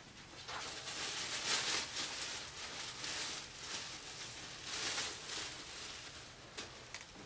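Thin plastic bag crinkling and rustling as hands open it and dig through the clothes inside, in repeated surges that die down near the end.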